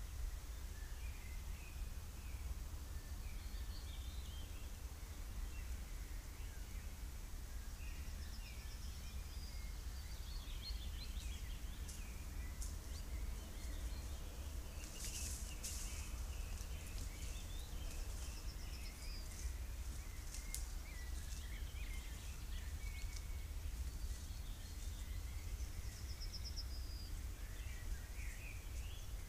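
Woodland birdsong: several songbirds chirping and calling, one repeating a short high trill a few times, over a steady low background hum. A few short rustles come near the middle.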